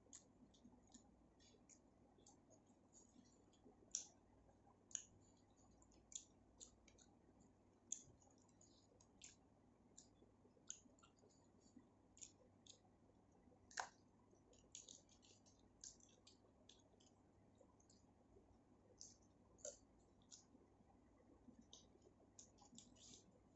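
Close-up eating sounds: irregular soft clicks and wet smacks of mouth and lips while chewing a mouthful of food, a few louder smacks standing out.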